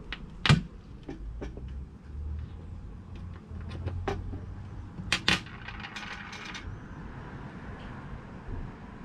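Small metal lighter parts and tools clicking and tapping on a hard surface. Scattered sharp clicks, the loudest about half a second in and a quick pair around five seconds, are followed by about a second of light scraping rattle.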